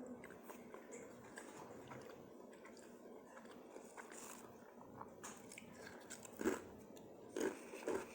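Chewing and crunching on cheddar Popcorners chips, mostly faint, with louder crunches about six and a half seconds in and again near the end.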